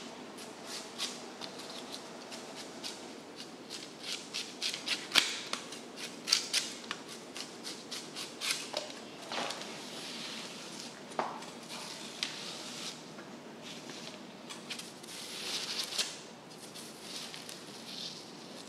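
A blade scraping and peeling the scaly outer skin off a giant bluefin tuna: a run of crisp, rasping scrapes and crackles with a few sharper snaps.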